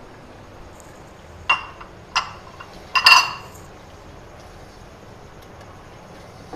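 A metal spoon clinking against a small glass bowl: two sharp ringing clinks about a second and a half and two seconds in, then a louder double clink about three seconds in, as ginger-garlic paste is knocked off into the pot.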